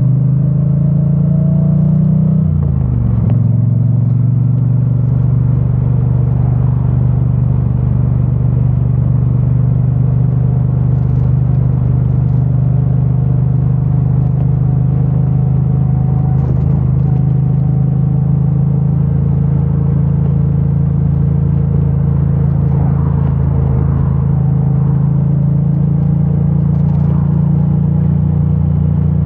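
2022 Triumph Bonneville T100's 900 cc parallel-twin engine through its stock exhaust, heard from the rider's seat: it climbs in revs, drops pitch at an upshift about three seconds in, then runs at a steady cruise.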